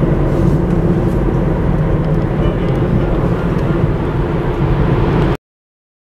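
Steady road and engine noise of a car driving, heard from inside the cabin, a low even rumble. It cuts off abruptly to dead silence near the end.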